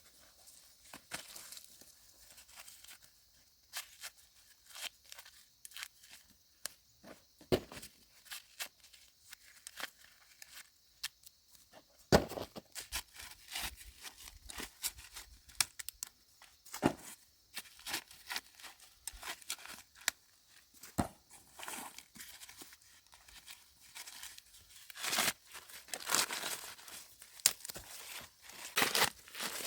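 Dry corn leaves and husks rustling and crackling as ears of corn are snapped off the stalks by hand, with irregular sharp snaps that grow louder from about halfway through.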